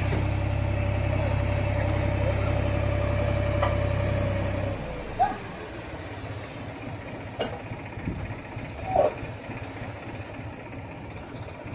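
An engine running steadily at idle, which shuts off abruptly about five seconds in. A few short, sharp sounds follow in the quieter background.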